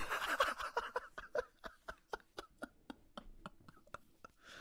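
A man's breathy laughter under his breath: a burst of laughing at the start, then a trailing string of short, fainter chuckles.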